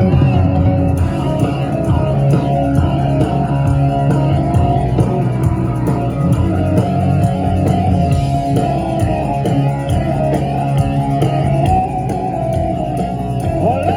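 Live rock band playing an instrumental passage with electric guitar, bass and drum kit, heard loud through an audience recording.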